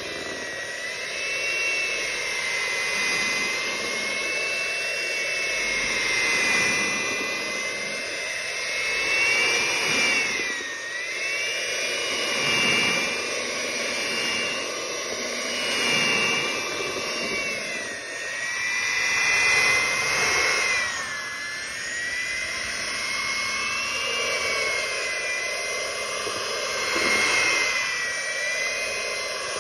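Electric hand mixer running, its twin beaters whirring through thick cake batter. The motor's high whine is steady but dips in pitch a few times, then recovers.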